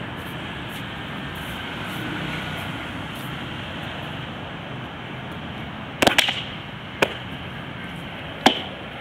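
Steady hum of distant road traffic, broken by sharp knocks from a short stick being struck during a taiji form. There is a quick cluster of two or three about six seconds in, then single knocks about a second and two and a half seconds later.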